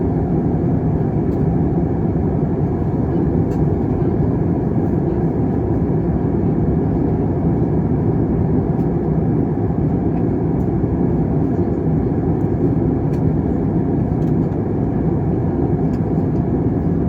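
Steady, loud low rumble of an airliner cabin in flight: engine and airflow noise heard from a window seat.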